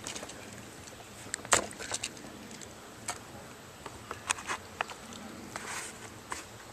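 Footsteps in dry leaf litter and twigs: irregular crunches and snaps, with the loudest crack about a second and a half in.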